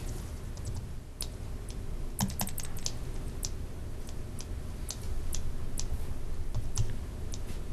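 Typing on a computer keyboard: irregular key clicks, with a quick cluster about two seconds in, over a low steady room rumble.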